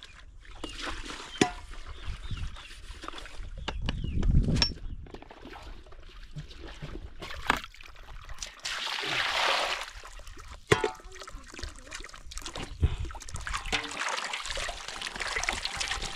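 Clothes being hand-washed in an aluminium basin: water splashing and sloshing, with a rush of water around the middle and scattered sharp knocks of the metal basin and pots.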